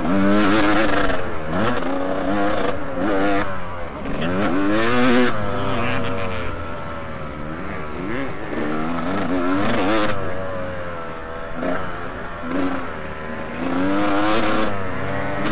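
Several motocross bikes revving hard, their engine pitch rising and falling again and again as they accelerate and back off, overlapping one another.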